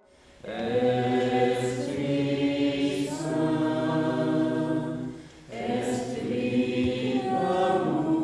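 A small group singing a hymn together in long held notes: two phrases, with a short break about five seconds in.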